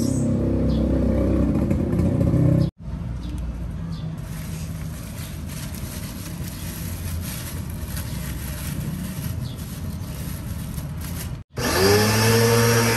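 Lotus 1400 W electric pressure washer running and spraying, with a steady motor hum under the rush of the jet. The sound breaks off abruptly twice. In the louder last part the motor's hum dips in pitch and then rises again.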